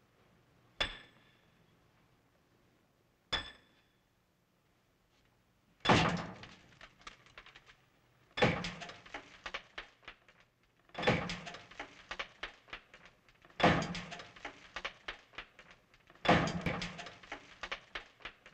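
Two sharp metallic clanks with a short ringing tone, then heavy hammer blows on a chisel about every two and a half seconds, each followed by a scatter of cracking and rattling as the chisel breaks into a concrete floor.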